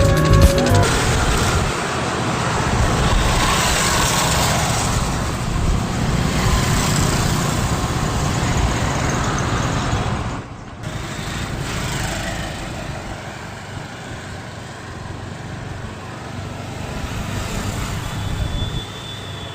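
Steady road traffic noise, with a short break about ten and a half seconds in.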